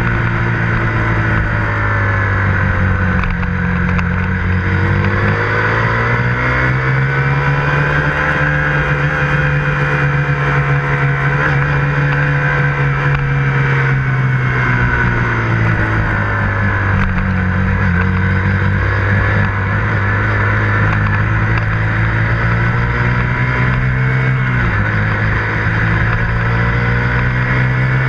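KTM 125 Duke motorcycle's single-cylinder four-stroke engine running under way, heard close up. The engine pitch rises a few seconds in, holds, then falls back, with a sudden change in pitch about three-quarters of the way through.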